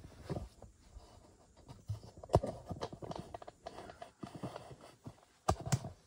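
Handling noise of a camera being carried and set in place: irregular clicks, knocks and rubbing, with a sharp knock midway and two knocks close together near the end.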